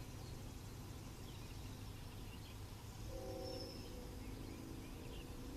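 Distant CSX locomotive air horn: several steady tones sounding together in one long blast starting about halfway through, over a low steady rumble, with small birds chirping.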